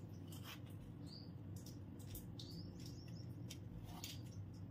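Faint chirping of small birds, short high chirps every second or so, with a few faint clicks.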